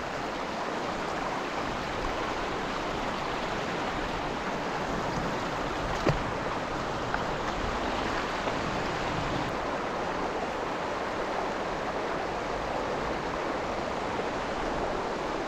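Steady rush of flowing river water, with a single short click about six seconds in.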